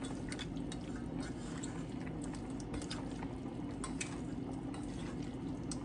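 Hands kneading raw beef tips and chopped bell peppers in a stainless steel bowl: soft wet squishing with scattered small clicks, over a steady low background noise.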